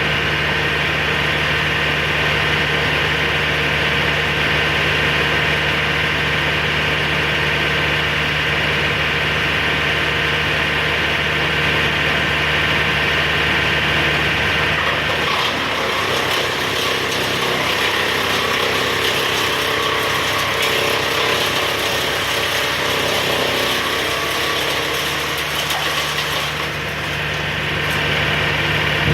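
Engine of a work machine running steadily. For about twelve seconds in the middle the steady hum gives way to a rougher mechanical clatter with more hiss, then the steady running returns near the end.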